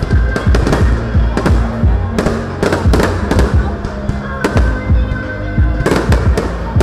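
Fireworks display: an irregular series of sharp bangs and crackles from aerial shells bursting, a few a second, with music playing underneath.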